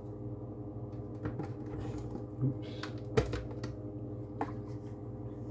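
A few light plastic clicks and knocks as personal blender cups are handled after blending, over a steady low hum.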